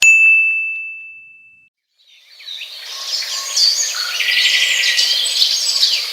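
A single bright ding that rings and fades away over about a second and a half, followed after a short gap by birds chirping for about four seconds.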